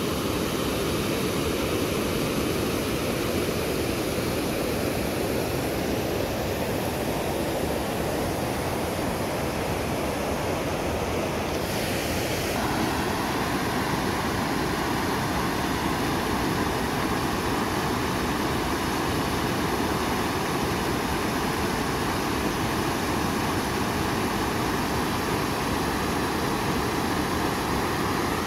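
Floodwater rushing over a concrete dam spillway into churning whitewater: a steady, even roar of falling water.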